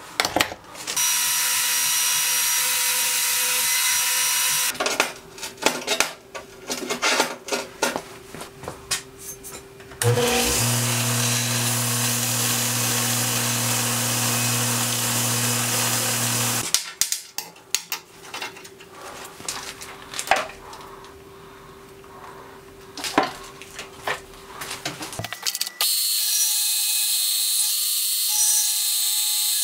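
Metal-shop machining in separate takes. A belt grinder runs with a strong motor hum while a steel piece is ground against the belt, throwing sparks. Near the end a milling machine's end mill cuts a slot into a round steel block with a steady high-pitched cutting noise. Between them come other stretches of steady tool noise and scattered clicks and knocks of handling.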